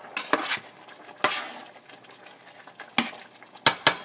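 Kitchen utensils and cookware clinking and scraping: several sharp knocks, one about a second in followed by a longer rustling scrape, and a quick pair of clinks near the end.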